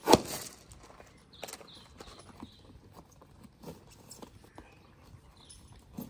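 Handling of saddle tack on a standing horse: a sharp knock at the start, then scattered lighter knocks and clinks from the stirrup iron and the buckles of the stirrup leathers being adjusted.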